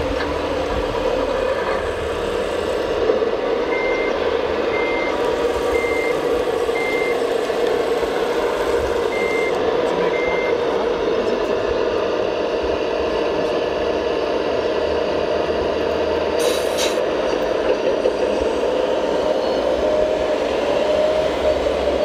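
Radio-controlled scale hydraulic excavator (Hitachi Zaxis 225 model) working, its hydraulic pump whining steadily and rising a little in pitch near the end. An electronic reversing beeper sounds four times about a second apart a few seconds in, then twice more.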